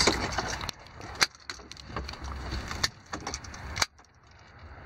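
Scattered sharp clicks and knocks, about one a second, from hands handling the wireless backup-camera monitor and its mount on a truck dashboard, over a low steady rumble.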